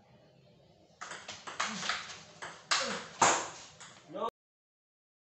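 Table tennis play: sharp clicks of the ball off paddles and table, mixed with short shouts, after about a second of near quiet. The sound cuts off abruptly a little over four seconds in.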